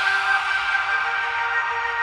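Progressive trance synth pad holding sustained chords with no beat, its bright top end gradually dulling as if a filter is closing.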